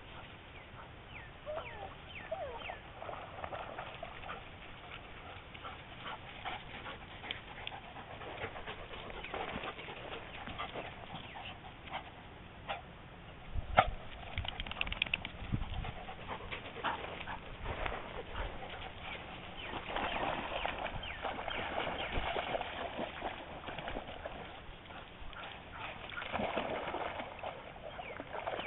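Two dogs, a collie and a small tan dog, playing on gravel: paws scuffling and crunching on the stones, with occasional short dog vocal sounds and one sharp knock about halfway through.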